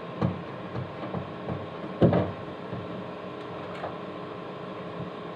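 Knocks and clicks of a range hood's filter cap and cover plate being handled and fitted by hand. Several light taps, the loudest about two seconds in, over a steady low hum.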